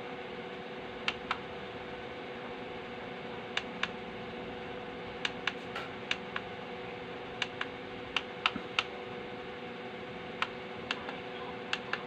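Scattered sharp clicks, irregularly spaced, as the Konzert KCS-212 amplifier's front-panel knob is worked to step its FM tuner down the band. Under them runs a steady hum and hiss, with no station coming in.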